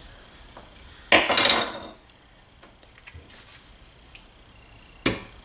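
Kitchen knife cutting through a raw head of cauliflower on a wooden cutting board: one loud crunching cut about a second in, then light knife taps, and a sharp knock near the end.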